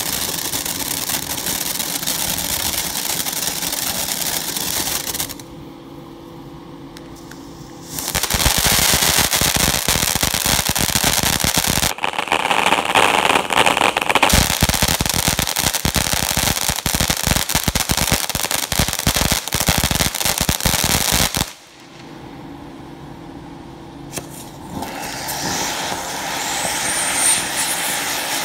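Tree Fort fountain firework burning: a steady hiss of spraying sparks that drops away about five seconds in, then a long stretch of loud, dense crackling. After a short lull the hiss builds again near the end as twin sprays start.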